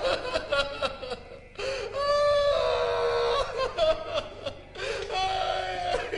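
A man wailing in several drawn-out, sobbing cries.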